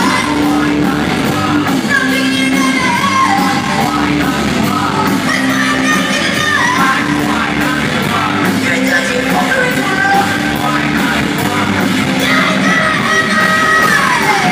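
Live rock band playing loud, with a woman singing over electric guitars, bass and steadily struck drums and cymbals.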